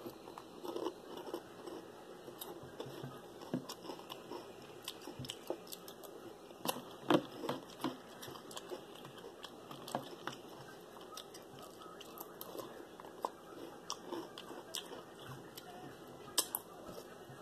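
Someone chewing and crunching a mouthful of Froot Loops cereal in milk, with irregular sharp clicks of a metal spoon against a plastic bowl, the loudest about seven seconds in and near the end.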